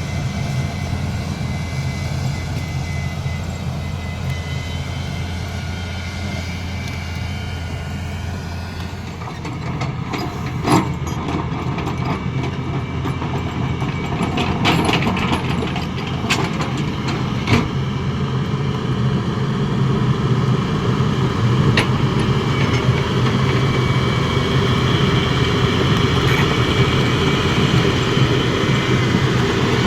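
Diesel engines of earthmoving machinery running steadily, with a shift in the engine note about nine seconds in and the sound building toward the end. A few sharp metallic knocks sound in the middle, the loudest about eleven and seventeen seconds in.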